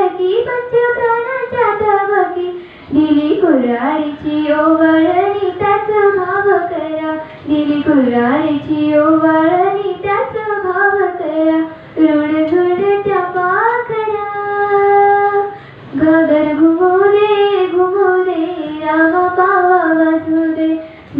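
A young girl singing a Marathi folk song solo into a microphone, without accompaniment: melodic phrases with short breath breaks between them and one long held note a little past the middle.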